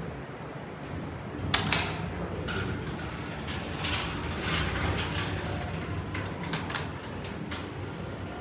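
MEI hydraulic elevator's sliding doors running, with a sharp clunk about one and a half seconds in and a few lighter clicks later, over a steady low hum.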